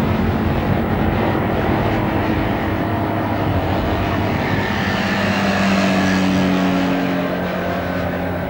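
Propeller aircraft engine running steadily. It grows louder a little past the middle, then eases off toward the end with a slight drop in pitch.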